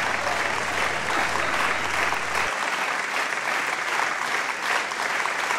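Audience applauding steadily, a dense clapping with no break. A low hum underneath stops about two and a half seconds in.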